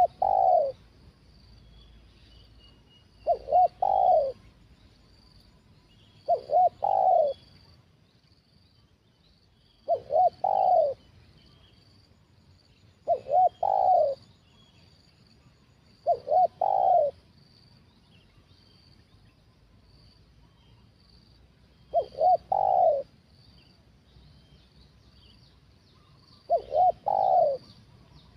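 Spotted dove cooing: a phrase of two short notes and a longer, lower note, repeated about every three seconds, with one longer pause about two thirds of the way through.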